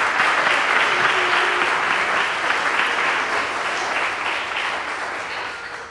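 Congregation applauding, the clapping dying away toward the end.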